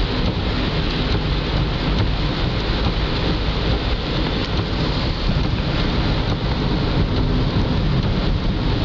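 Heavy rain pelting a moving car's windshield and roof, heard inside the cabin, over a steady low rumble of tyres on the wet road.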